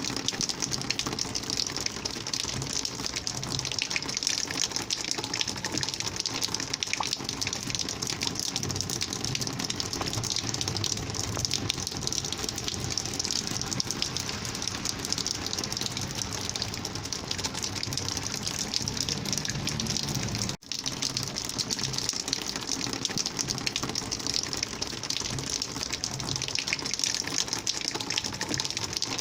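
Rainwater flowing and gushing in a steady, dense rush, with a momentary drop-out about twenty seconds in.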